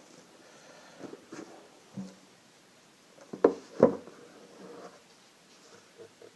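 Gift packaging being opened by hand: light rustling and scraping, with two sharp taps close together about three and a half seconds in.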